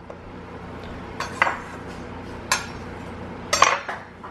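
A kitchen knife knocking on a bamboo cutting board as a jalapeño is cut in half: about three sharp knocks a second or so apart. The last and loudest, near the end, fits the knife being laid down on the board.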